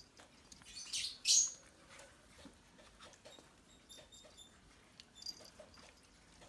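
Xoloitzcuintle puppies play-wrestling: two short, high-pitched yelps about a second in, amid faint scuffling and small clicks of paws on a blanket.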